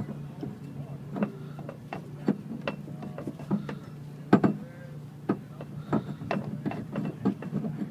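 Irregular clicks and knocks from a jack-stand hat with a T-shaped nut being pushed into the car's jack point and turned to lock it in place, the loudest knock about halfway through. A steady low hum runs underneath.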